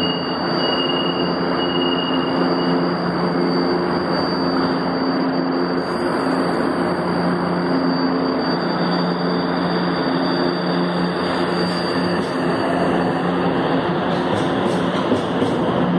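São Paulo Metrô fleet H train at the platform, its equipment humming steadily, with a repeated beeping in the first few seconds as the doors close. A hiss comes in about six seconds in. Then a rising whine sets in as the train pulls out, with wheel clicks near the end.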